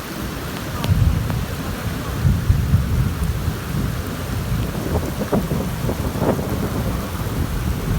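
Rainstorm: steady rain hiss with a heavy low rumbling that swells about a second in and carries on.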